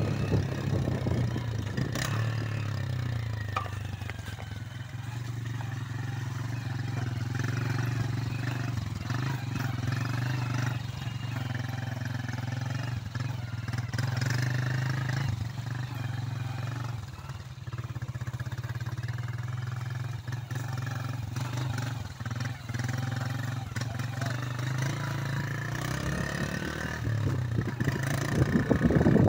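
Motorcycle engine running steadily as the bike is ridden along a muddy dirt track, getting louder near the end.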